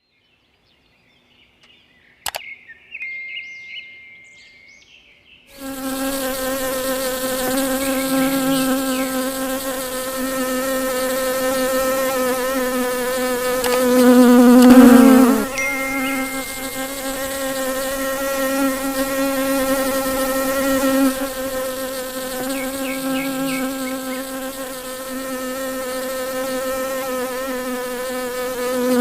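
Honey bee buzzing in a steady hum after a quiet opening, starting about five seconds in. Around halfway it grows loudest and its pitch drops briefly, then the hum carries on.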